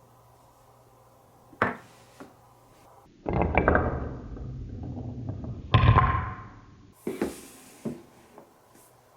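Marbles running on a wooden Cuboro marble run: a single clack, then a marble rolling along the wooden track for about three and a half seconds with a loud knock about six seconds in as it drops, followed by a few quick clacks.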